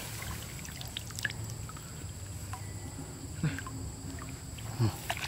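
Faint sloshing and trickling of water, with a few light knocks.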